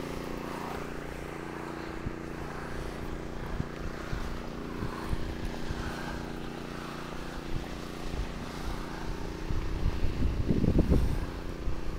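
An engine running steadily at an even speed. Wind buffets the microphone in the last couple of seconds.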